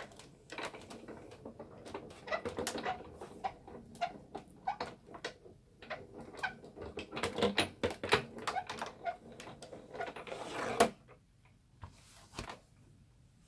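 Manual die-cutting machine being cranked by hand, its cutting plates and die rolling through the rollers: a run of irregular clicks and small knocks, with one sharper knock near the end.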